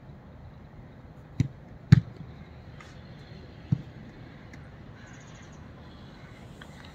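Football kicked three times in passing, each a short thud; the loudest about two seconds in.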